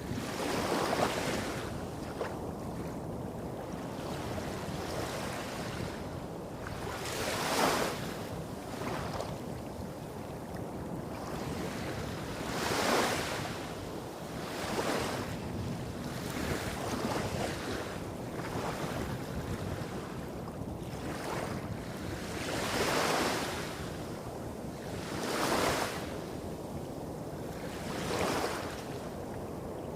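Small waves breaking and washing up a beach, one gentle wash every few seconds, over a steady low rumble of waves hitting rocks a few hundred metres off.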